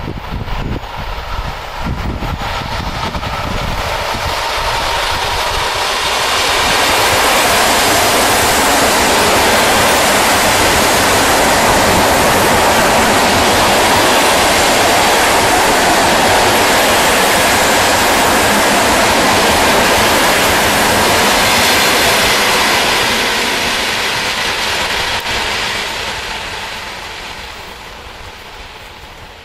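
ED4M DC electric multiple unit passing at speed. Its running noise on the rails builds as it approaches, stays loud for about fifteen seconds as the cars go by, and fades as it recedes.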